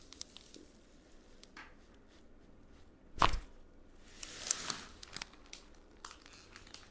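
A single sharp, loud crack about three seconds in, typical of the neck joints popping under a chiropractic adjustment. It is followed by about a second of rustling from hands and clothing, with a few small clicks.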